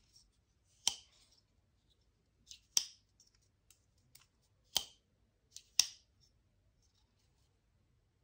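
Benchmade Bugout folding knife being closed and opened by hand, its AXIS lock and blade snapping with four sharp clicks, each a second or two apart, some with a faint slide just before.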